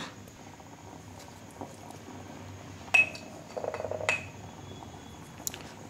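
A spoon clinking against metal cookware while salt is added to the pot: two sharp clinks about a second apart, each with a brief ringing tone, and a quick rattle of small taps between them.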